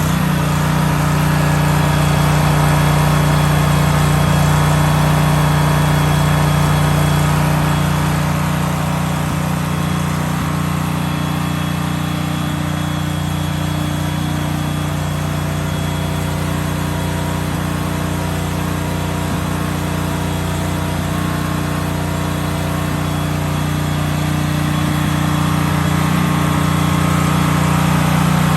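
Gas generator powered by a 14 hp Vanguard engine running at a steady speed, with an even engine hum; it eases a little in loudness a few seconds in and comes back up near the end.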